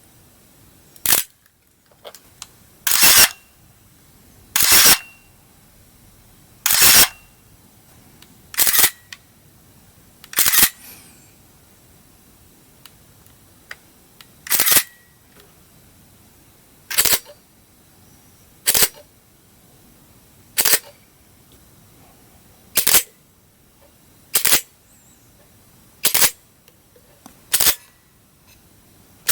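Pentax single-lens reflex camera shutter being fired one frame at a time, each release a short mirror-and-shutter clack. About fourteen releases come roughly two seconds apart, with a longer pause about a third of the way through.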